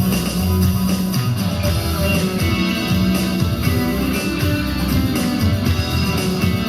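Music accompanying a dance number, at a steady, loud level.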